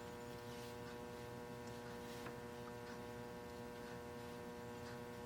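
Steady, faint electrical hum, with a few light ticks.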